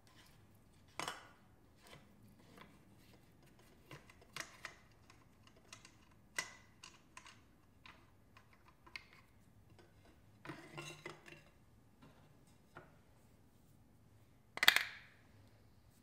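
Air cleaner housing of a garden tractor's diesel engine being opened by hand: scattered light clicks and plastic rubbing as the end cap is twisted off, then a louder scrape near the end as the air filter element is pulled out of the housing.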